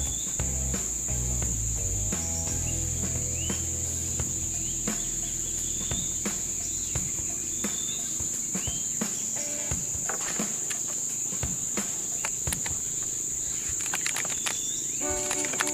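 Insects trilling in one steady, high-pitched drone, with scattered short clicks and a few brief rising chirps over it.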